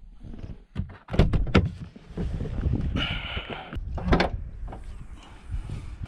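An MPV's doors being opened and shut: a run of clicks and knocks, a short scrape about three seconds in, then a heavy thunk of a door closing about four seconds in.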